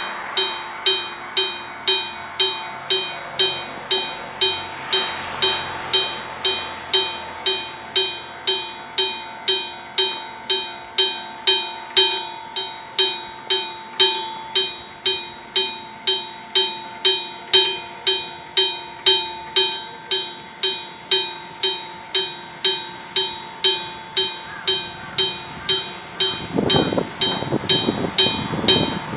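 Electric bell of an old-type Japanese railway level crossing ringing, its clapper striking about twice a second in a steady, evenly spaced clang: the crossing warning is active for an oncoming train. Near the end a rough, lower noise joins the ringing.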